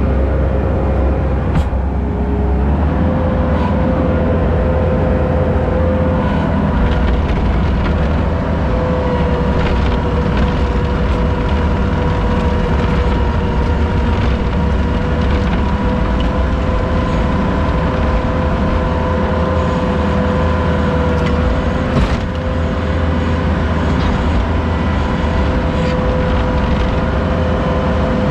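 Heavy vehicle engine running steadily, with a steady whine riding over its rumble that steps up slightly in pitch a couple of seconds in.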